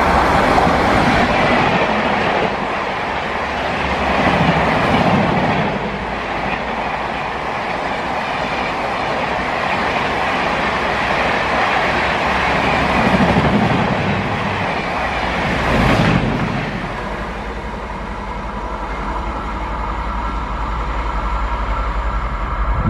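An Indian Railways express train running past at speed, a loud, continuous rush of wheels on the rails that swells a few times as the coaches go by.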